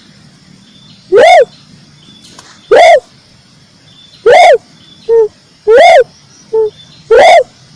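Red turtle dove (tekukur merah) calling: five loud, short cooing notes about every second and a half, with two shorter, softer notes between the last ones. The recording is so loud that the calls clip.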